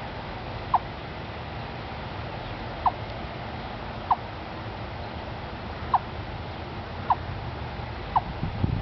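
Eastern chipmunk giving its repeated clucking call: six short single notes, each dropping slightly in pitch, at uneven intervals of about one to two seconds, with a hollow, wood-block-like sound.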